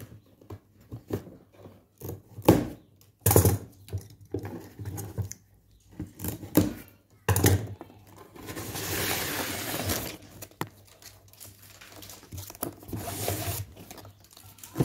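A cardboard box being opened by hand: scattered knocks and handling clicks, then two longer stretches of tearing in the second half, with crinkling packaging.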